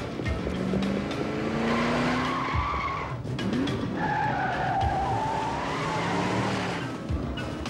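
A van's engine revving as it pulls away, with its tyres squealing: a short squeal about two seconds in and a longer, wavering one from about four seconds.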